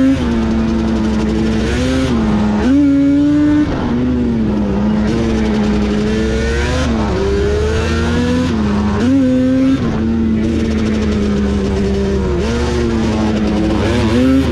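ATV engine running under way from on board, its pitch holding steady and then rising and dipping back several times as the throttle changes, over rushing wind noise.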